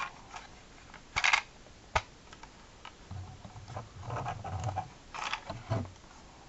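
Hands handling and turning a Micro Galaxy Squadron Inquisitor Transport Scythe plastic toy spaceship, making scattered clicks, taps and rubbing. The loudest sound is a short cluster of clicks a little past one second, with a single sharp click at about two seconds.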